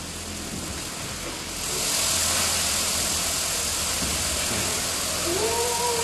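A large drum fan blowing styrofoam 'snow', a steady rush of air over a low motor hum that grows louder about a second and a half in. Near the end a person cries out in a long, high squeal.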